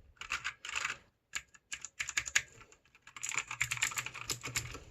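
Typing on a mechanical keyboard with clicky blue switches: a short flurry of keystrokes, a brief pause, a few scattered presses, then fast continuous typing from about three seconds in.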